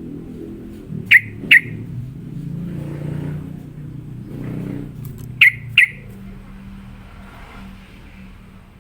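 Yellow-vented bulbul (trucukan) giving two short, sharp calls in quick succession, then another pair about four seconds later, over a steady low hum.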